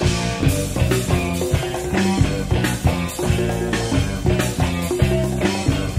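Funk-rock band music: a full band with drums and bass playing a steady, driving beat.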